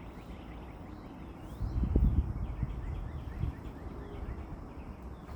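Faint bird chirps over outdoor background noise, with a louder low rumble on the microphone about two seconds in.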